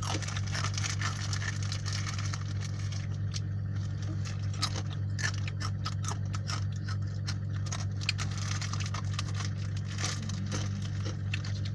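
Snack-eating noises: many small irregular crunching crackles and clicks over a steady low hum.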